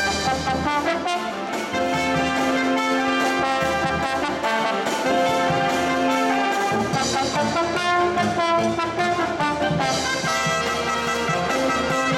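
Live brass marching band playing, with trumpets, trombones, saxophones and a sousaphone. Long held low notes sound under a moving melody.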